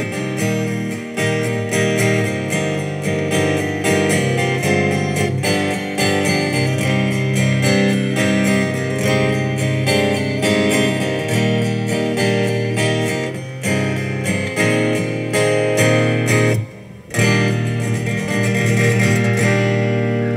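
Solo steel-string acoustic guitar strumming chords in the song's closing instrumental. About three-quarters of the way through it stops for a moment, then a final chord rings out.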